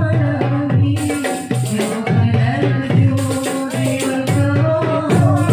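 Marawis ensemble playing Islamic devotional music: hand-struck marawis and barrel drums beating a steady rhythm under a held melody.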